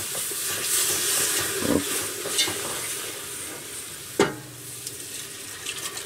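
Whisk stirring a flour-and-butter roux in a hot stainless steel pot, the roux sizzling as meat broth is added a little at a time. A sharp clink about four seconds in.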